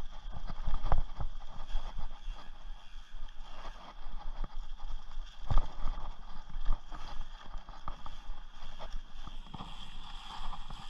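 Rocky Mountain Thunderbolt mountain bike rolling fast over a dirt trail: tyre noise on dirt and leaves with frequent knocks and rattles from the bike over bumps, a louder jolt about a second in and another about halfway through.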